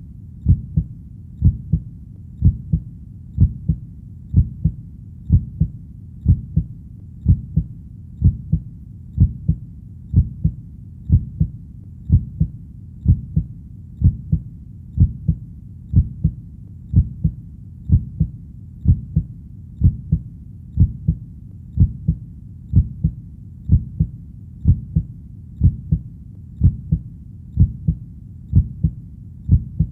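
A heartbeat beating steadily at a little over one beat a second. Each beat is a low double thump, lub-dub, over a faint steady background.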